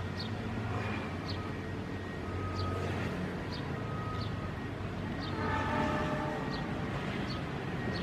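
Diesel locomotive approaching with its engine running steadily, and about five seconds in a short multi-tone horn blast lasting about a second.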